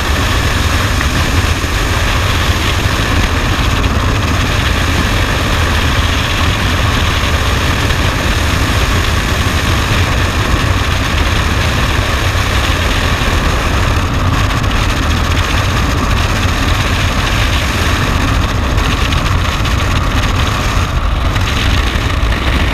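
Steady, loud rush of wind over the microphone in skydiving freefall.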